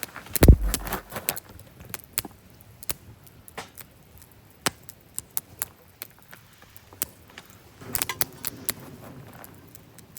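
Wood campfire crackling, with irregular sharp pops and snaps. A heavy low thump comes about half a second in.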